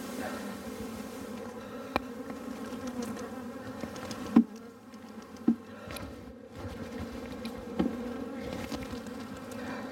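A mass of honey bees buzzing steadily as a package of bees is shaken out into a hive box. Four sharp knocks break through, the loudest about four and a half seconds in: the plastic package cage knocking against the wooden hive box to dislodge the bees.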